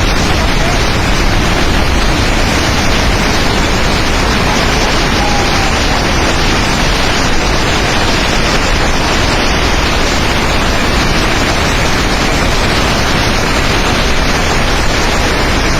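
Steady, loud rushing noise of a flooded river's torrent, unbroken and without any rhythm or pitch.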